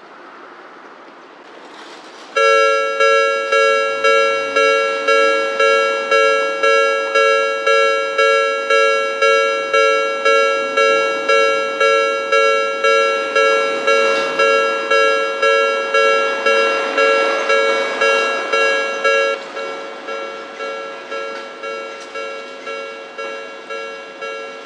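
Japanese railway level-crossing alarm bell ringing, an electronic two-note ding repeating about twice a second to warn of an approaching tram. About three-quarters of the way through it drops to a quieter level and keeps ringing.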